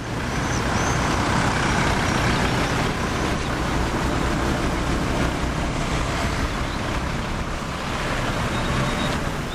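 A steady, loud rumble and hiss of a running engine or heavy vehicle, with a few faint bird chirps in the first couple of seconds.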